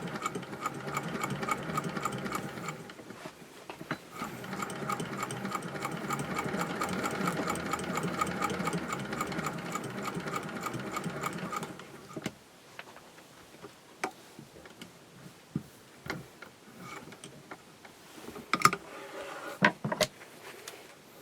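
Singer 201K cast-iron straight-stitch sewing machine running steadily, stitching a rolled hem with a fast, even rhythm. It eases off briefly about three seconds in, then stops about twelve seconds in. After that there are only scattered light clicks and knocks.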